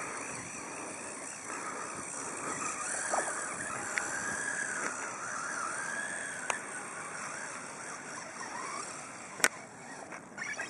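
A small electric robot car's drive motor whining as it runs over grass, the whine rising and falling in pitch, with one sharp click near the end.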